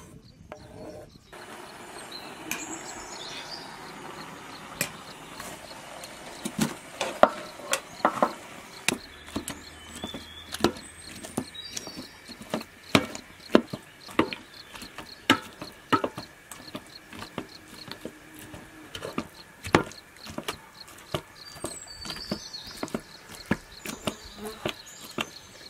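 Metal potato masher pounding cooked eggplant and potato in a metal pot, giving irregular knocks and clanks about one or two a second. Faint insect buzzing and a few bird chirps sit behind it.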